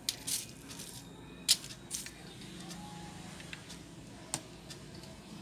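Clear plastic packaging being handled by hand: a few sharp crinkles and clicks, the loudest about a second and a half in, over a low steady room hum.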